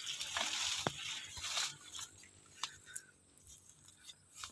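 Faint rustling and crackling with scattered small clicks, busier in the first second and a half and sparser after: leaves and dry grass brushing and crunching as someone moves along a garden row between bean and broccoli plants.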